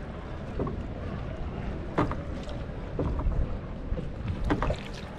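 Gondola being rowed: water splashing and lapping at the oar and hull, with a few sharper splashes, over a low wind rumble on the microphone.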